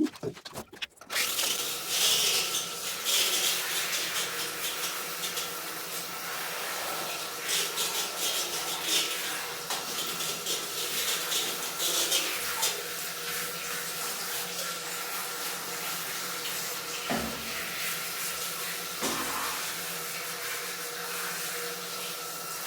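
Water running from a tap or shower head and splashing, starting suddenly about a second in and then running steadily.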